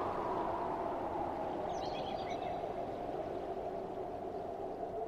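Soft, wind-like whooshing ambience that slowly dips and swells, with a short flurry of high, bird-like chirps about two seconds in.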